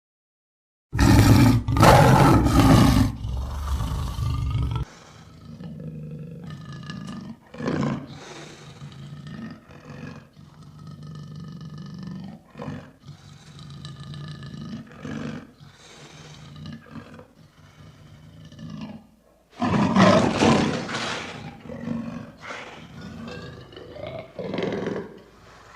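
Lion roaring. After a second of silence comes a loud roar of about four seconds, then a run of shorter, quieter calls. A second loud roar comes about twenty seconds in, followed by more short calls.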